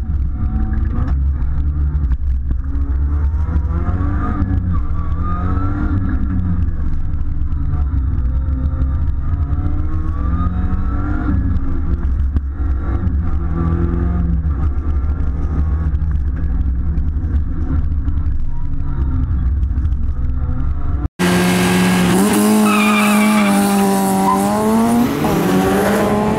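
A rally car's engine heard from inside the cabin, revving up and down through repeated gear changes over a heavy low rumble. About 21 seconds in it cuts to trackside sound of a rally car revving hard, with tyre squeal as it slides through a corner.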